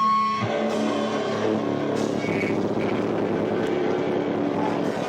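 Live rock band playing loud through an overloaded camcorder microphone, heard as a dense distorted wash with a few held notes. A high held note stops about half a second in.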